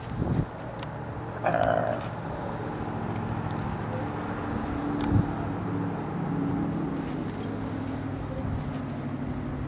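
Gray wolf growling low in drawn-out stretches during a face-to-face standoff with another wolf, with a brief higher-pitched call about a second and a half in.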